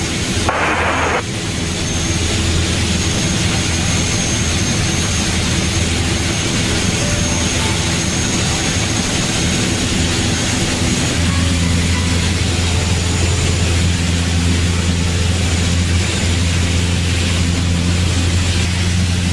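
Piper light aircraft's piston engine and propeller droning steadily in cruise flight, heard inside the cabin, with a thin steady high whine above it. The low drone grows stronger about eleven seconds in.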